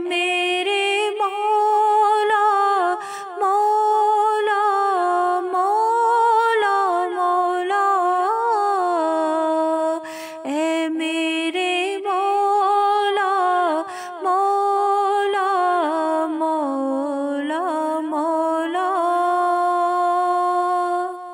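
A woman's unaccompanied voice carrying a slow devotional melody in long held notes that bend up and down, with short breath pauses, fading out at the end.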